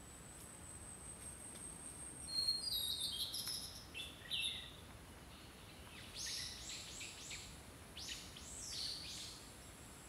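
Wild songbirds calling in woodland: a cluster of high chirps about two seconds in, then a quick series of short, downward-slurred notes from about six seconds. A thin, steady high-pitched tone sounds behind them for much of the time.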